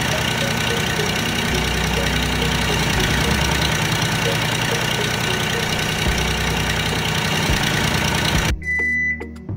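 Engine sound like a diesel tractor idling, running steadily with an even knocking beat. It cuts off suddenly near the end, followed by a high electronic beep.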